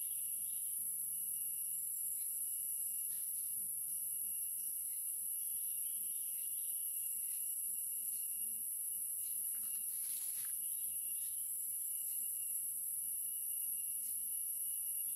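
Steady high-pitched drone of insects with a thinner steady insect tone beneath it, and a few faint short scratchy sounds, the clearest about ten seconds in.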